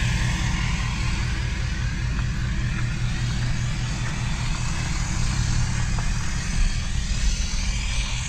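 Steady road noise of a vehicle driving at speed: a continuous low rumble with an even tyre and wind hiss.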